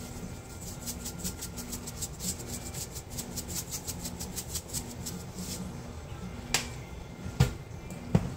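Sea salt shaken from a shaker into a pot of vegetable soup: a quick, even run of light gritty shakes, about six a second. Near the end come a few sharp knocks.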